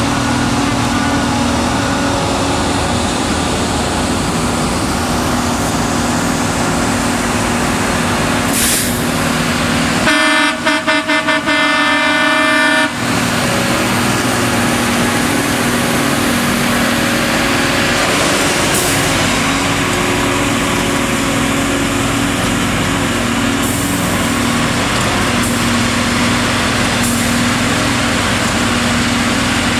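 Diesel engines of a line of railway track-maintenance machines running steadily as they roll slowly past. About ten seconds in, a horn on one of the machines sounds several quick toots and then one longer blast.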